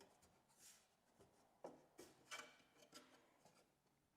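Near silence, with a few faint, short clicks and scrapes of screws and a tool being handled while floorboard screws are tightened.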